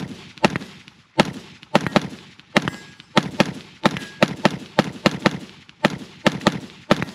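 Diamondback DB15 AR-15 rifle in 5.56 firing a rapid string of semi-automatic shots as fast as the trigger is worked, about two to three sharp cracks a second, some seventeen in all.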